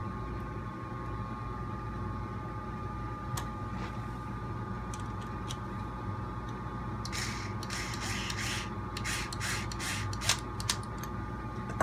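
Steady electrical hum in the background. From about seven seconds in, a run of short clicks and scraping as a small screw and lock nut are fastened by hand on an RC truck's trailing-arm bracket.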